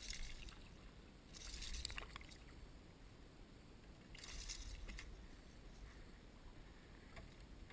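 A hooked bass thrashing at the water surface, three short splashes as it jumps and shakes on the line.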